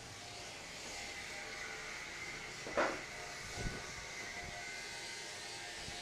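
Steady machine hum with a high whine and several held tones, from a device running in the room. A single sharp knock comes about three seconds in.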